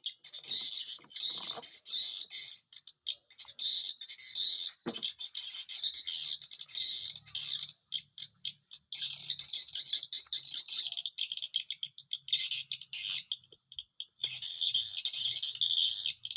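Dense, continuous high-pitched twittering of swiftlets at a swiftlet nesting house, with short lulls about halfway through and again near the end.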